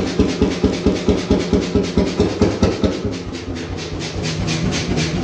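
1928 Beijer 13 hp single-cylinder two-stroke hot-bulb oil engine running, with a steady beat of firing strokes several times a second. About three seconds in, the thumps grow less sharp.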